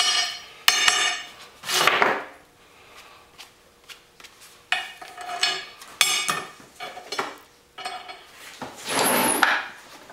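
Small steel washers, a nut and steel pliers clinking and scraping on a steel bench plate as they are handled: several sharp metallic clinks with a short ring, mixed with softer scraping and rustling.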